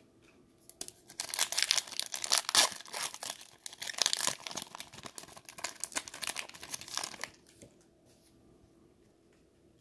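Foil wrapper of a Mosaic football card pack being torn open and crinkled, a dense crackling that lasts about six seconds and stops suddenly.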